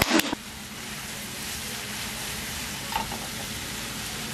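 A steady sizzling hiss.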